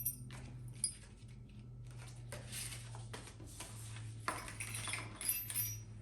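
Rustling and handling of tripod packaging and accessories, in several stretches with a sharp click about a second in. A low steady hum runs underneath.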